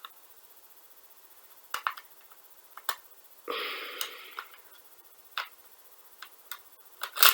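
A few sharp clicks and knocks of small plastic and metal parts, with a scraping rustle about a second long near the middle, as a gel blaster's split gearbox is handled and its main spring taken out. The loudest knock comes near the end.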